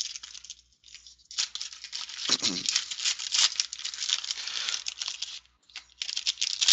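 A 2013 Rookies and Stars football card pack's wrapper crinkling and tearing as it is ripped open by hand, a dense run of crackles lasting about four seconds, with shorter rustles near the end.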